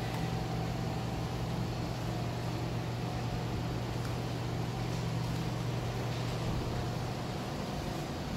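Steady low machine hum of room background, with a fainter higher steady tone above it; part of the low hum stops about six and a half seconds in.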